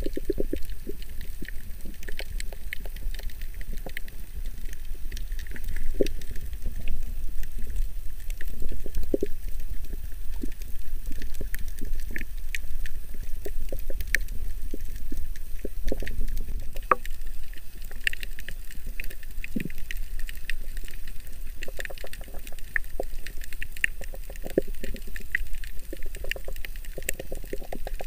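Underwater sound on a shallow coral reef: a steady low rumble of moving water with scattered sharp clicks and crackles throughout.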